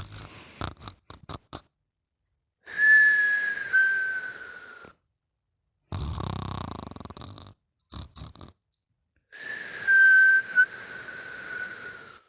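Snoring in sleep, breath by breath. Two long breaths each carry a thin whistle that slides slightly down in pitch, with a rough low snore between them and a few short snuffles at the start.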